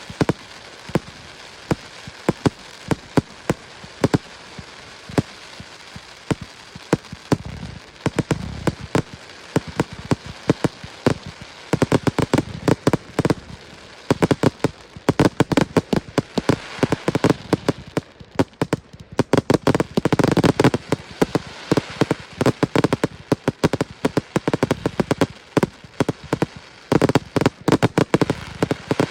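Large fireworks display: a steady run of sharp cracks and bangs with dense crackling, growing much thicker from about twelve seconds in, with heavier booms about a third of the way through and again around two-thirds.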